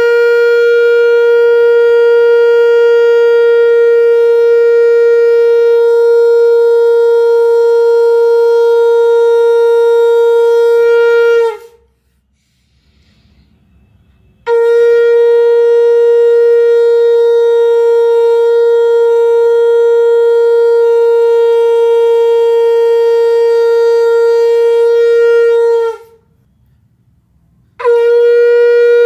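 Shankh (conch shell) blown in long, steady single-pitch blasts: two held notes of about eleven seconds each, separated by a short breath pause, with a third blast starting near the end. This is the ritual shankhnaad.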